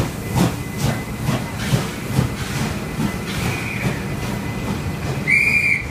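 NSWGR 36 class steam locomotive 3642 working away from the platform, its exhaust beats about two a second fading as it draws off, while the carriages roll past. A short shrill squeal near the end.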